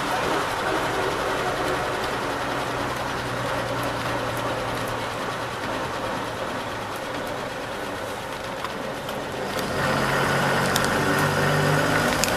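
1949 Bedford OB coach's straight-six petrol engine running under way, heard from inside the cab with road noise. It eases off a little, then grows louder about ten seconds in as it pulls harder.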